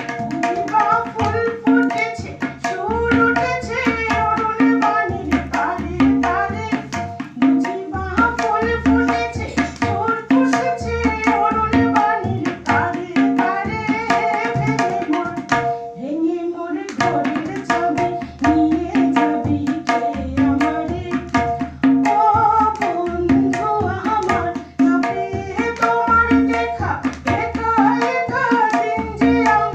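A woman singing a Bengali song into a microphone, accompanied by tabla keeping a steady rhythm over a held drone note, with a short break about halfway.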